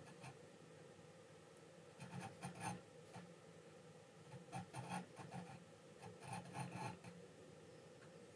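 Hand abrasive work on a knife being made from an old nata: short runs of faint rubbing, scraping strokes, three clusters a second or two apart.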